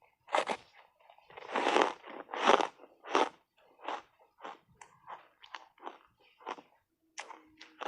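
Ice chunks coated in matcha powder crunching between the teeth in big bites: loud crunches in the first three seconds, then a run of smaller chewing crunches about two a second.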